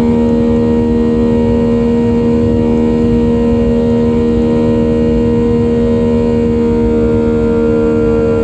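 Boeing 737-700's CFM56-7B jet engines running at high thrust, heard from inside the cabin: a loud, steady drone with a low rumble and a strong, unchanging hum.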